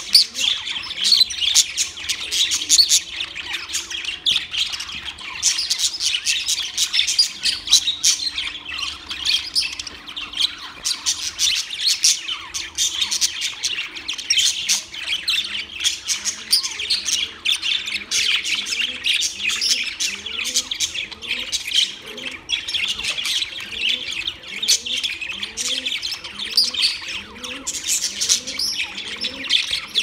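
A flock of budgerigars chattering and warbling in a dense, unbroken stream of high chirps and squawks. From about halfway, a lower call repeats roughly once a second underneath.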